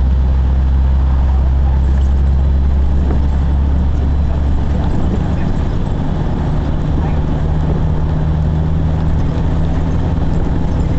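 An engine running steadily, a loud low drone with a few steady low tones; the tone shifts a little about five seconds in.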